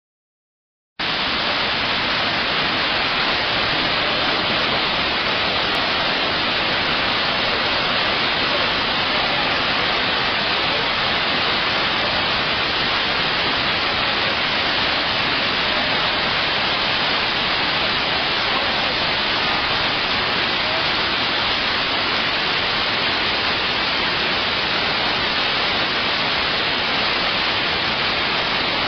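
Iguazu Falls, a steady, dense rush of falling water, cutting in suddenly about a second in and holding even throughout.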